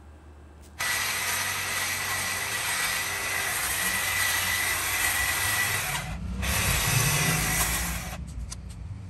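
Corded electric hedge trimmer running with a steady high motor whine as it cuts through a leafy shrub. It cuts out briefly about six seconds in, runs again, then stops about a second before the end.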